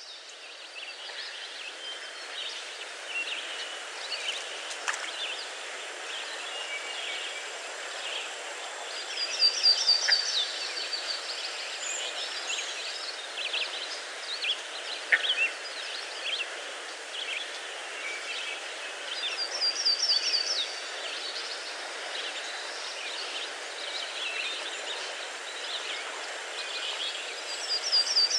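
Birds chirping and calling over a steady background hiss, with a rapid trill of high notes that comes back about every ten seconds.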